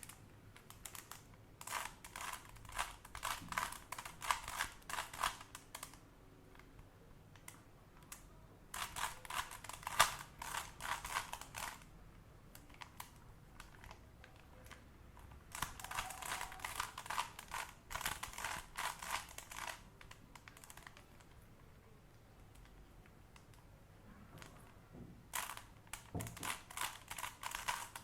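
Rubik's Cube being turned rapidly by hand, its plastic layers clicking in quick runs of turns. There are four runs, each a few seconds long, with pauses between them. The turns are the last layer of the solve.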